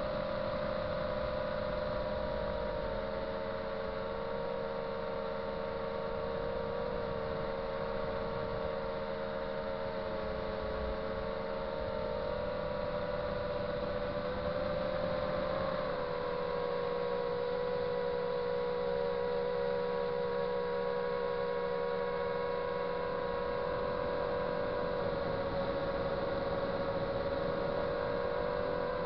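Small FPV quadcopter's motors and propellers whining steadily, heard from the aircraft itself: several close tones that shift slightly in pitch a few times as the throttle changes, with a low rush of wind underneath.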